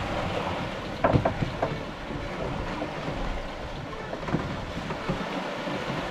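Wind and water rushing past an aluminium sailing catamaran under way: a steady, noisy rush with wind buffeting the microphone. A few short knocks come about a second in.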